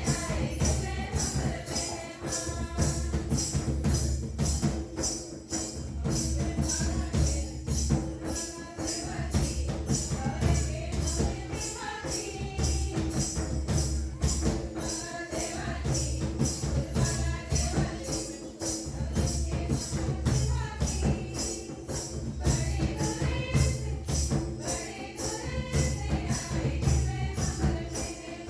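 A group of voices singing a song over a steady beat of jingling percussion strikes, about two or three a second.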